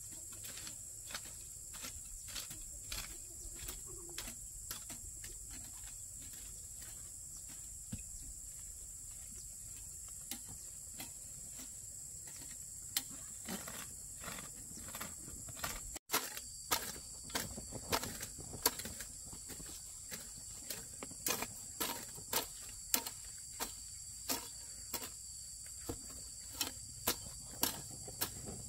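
Steady high insect chirring with irregular sharp taps, one or two a second, which come more often and louder after a brief break about sixteen seconds in.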